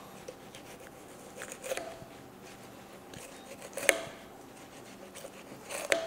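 Butcher's knife working through pork fat and meat down to the rib bones, giving three short scrapes and clicks about two seconds apart over faint room tone.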